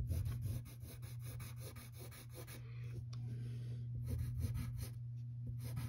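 Graphite pencil scratching on paper in quick, short strokes as lines are drawn and darkened, over a steady low hum.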